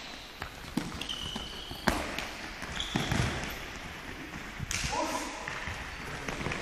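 Futsal ball kicked and bouncing on a sports-hall floor, with several sharp thuds, the loudest a little under two seconds in, and sneakers squeaking briefly on the court. Players shout near the end.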